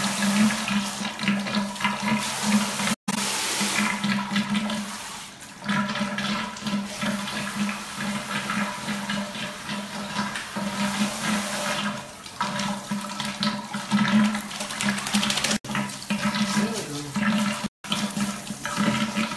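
Water running from a bathtub faucet into a partly filled tub, a continuous rushing with a steady low hum under it, while a dachshund stands in the water. The sound cuts out for an instant three times.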